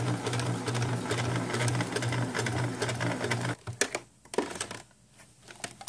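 Electric domestic sewing machine running steadily with an even stitching pulse, sewing bias tape along a corset's top edge. It stops about three and a half seconds in, followed by a few light clicks.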